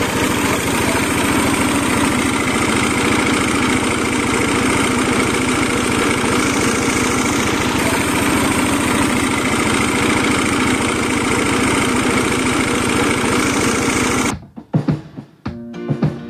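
Chili and spice grinding machine running with a loud, steady drone, cutting off suddenly about fourteen seconds in; plucked guitar music follows.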